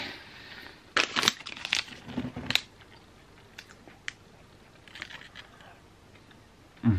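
Crinkling of a plastic snack wrapper being handled: a cluster of crackles about a second or two in, then a few faint rustles and clicks.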